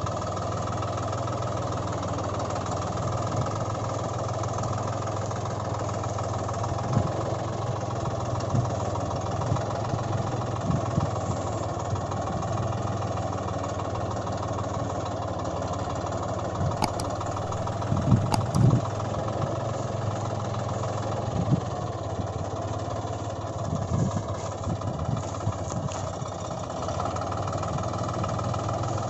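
Tractor engine running steadily at idle, with a few brief low thumps.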